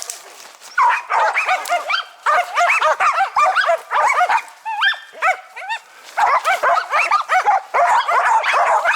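Several laika hunting dogs barking together in rapid, overlapping barks, with brief lulls near the start and about five seconds in. This is the pack's treeing bark, baying at a marten up a pine.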